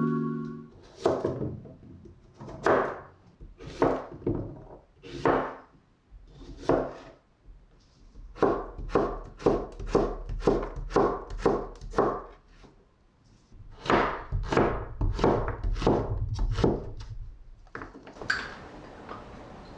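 Chef's knife cutting through zucchini. A few single cuts more than a second apart come first, then a quick, even run of chops, a short pause, and another run.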